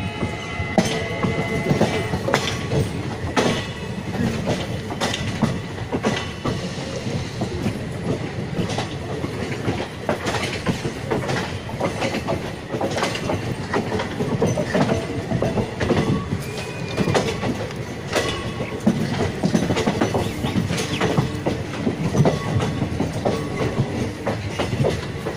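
Passenger coach of an Indian express train running on the rails, heard from on board: a steady rumble with the wheels clattering irregularly over rail joints.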